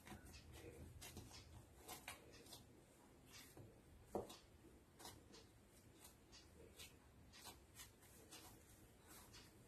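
Faint rubbing and pressing of all-purpose flour dough kneaded by hand on a stone countertop, with irregular light taps and one louder thud about four seconds in.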